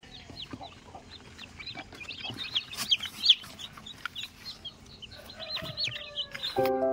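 A crowd of newly hatched chicks peeping busily, many short high cheeps overlapping, with a few sharp clicks and knocks, the loudest about three seconds in. Piano music comes in near the end.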